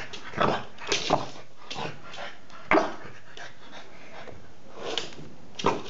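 French bulldog giving a handful of short, sharp barks spread over several seconds, panting between them.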